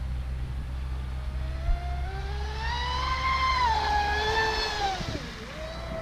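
Traxxas Spartan RC speedboat's brushless electric motor whining as the boat runs across the water. The whine climbs in pitch for a few seconds and wavers, then drops about five seconds in and holds lower, over a steady low rumble.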